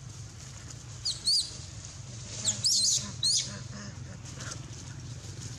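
A young long-tailed macaque squealing in short, high-pitched arching squeaks: a couple about a second in, then a louder cluster between about two and a half and three and a half seconds in.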